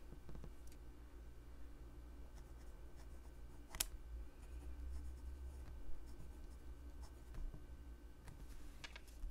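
Fountain pen nib scratching faintly on notebook paper as words are handwritten, with a sharp tick about four seconds in.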